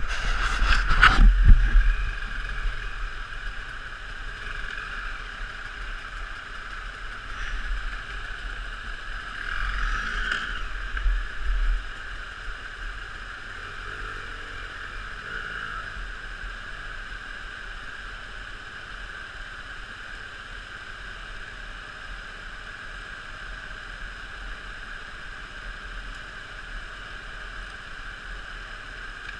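Water pouring steadily over a small stream weir, with loud handling knocks as the camera is set down in the first couple of seconds and a few louder swells of sound around ten to twelve seconds in.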